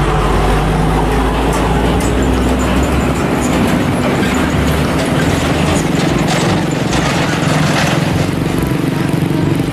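Engine of a large vehicle running steadily with a low rumble and hum, matching the bus being shown.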